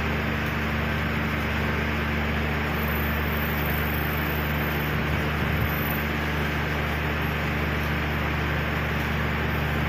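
Steady machine hum with a constant low drone and an even hiss, like a motor running unchanged throughout.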